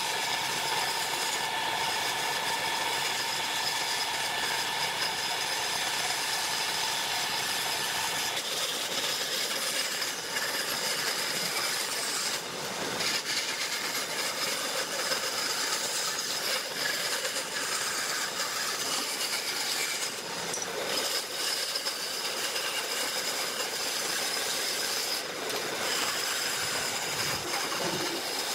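Electric power tool running against wood in a steady whine, its tone shifting slightly and dipping briefly a few times.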